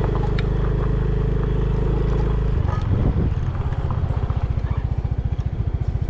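An engine running with a steady low pulsing; the pulse pattern changes about two and a half seconds in.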